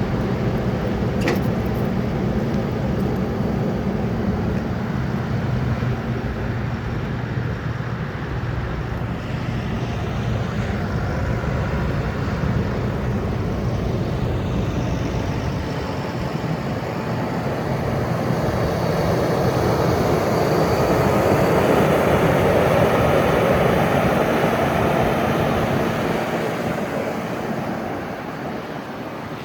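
Kubota SVL95-2 rubber-track skid steer's diesel engine running, with a steady hum in the first half. The sound then grows louder and rougher, peaks, and eases near the end.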